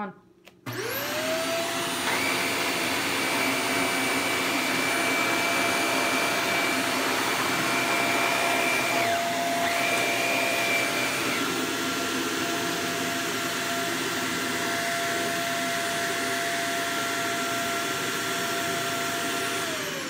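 Upright vacuum cleaner switched on about a second in, its motor spinning up and then running steadily with a high whine. It cuts off at the very end and begins to wind down.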